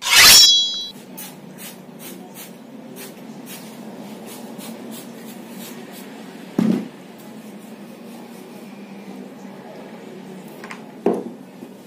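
Hands working on a person's head during a head massage: a run of light taps and rubs on the scalp over a steady low hum, with two duller thumps about six and eleven seconds in. It opens with a loud, brief burst carrying a ringing tone.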